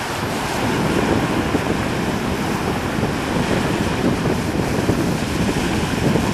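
Surf washing onto the beach with wind buffeting the microphone, a steady, even rush.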